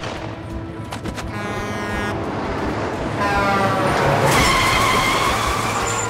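Car engine revving hard, its pitch climbing twice, with tyre noise and a louder rush from about four seconds in.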